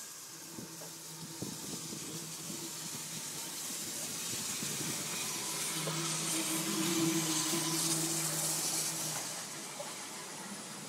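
Steam hissing from Santa Fe 3751, a 4-8-4 Northern steam locomotive rolling slowly alongside, swelling to its loudest a little past the middle and then easing. A low steady hum runs under the hiss for a few seconds.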